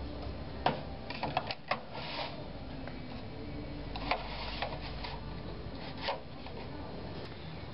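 Horn drinking cups clacking against each other and their wooden-rimmed holder as they are handled and set down on a metal shelf: a handful of short, sharp knocks at irregular moments, a cluster in the first two seconds and a few more later.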